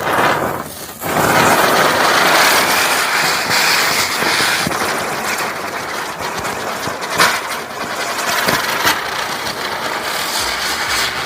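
A lit firecracker hissing steadily as it sprays sparks, with a brief dip just under a second in and a few sharp crackles in the second half.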